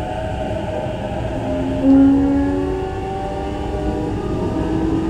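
JR East E233-5000 series electric train running, heard from inside a passenger car: a steady rumble of wheels on rails under the whine of the inverter and traction motors, whose several tones slide slowly in pitch, some climbing through the second half.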